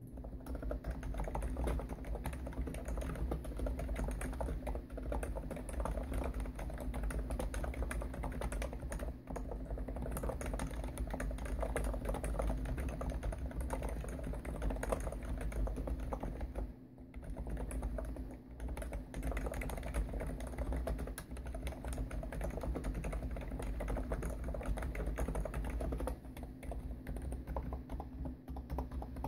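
Continuous fast typing on a Hansung GTune CHL5 electrostatic capacitive keyboard with 55 g switches and TH keycaps, giving dense, muffled key strokes with one brief pause past the middle. The desk rings along with the typing, a resonance the uploader regrets.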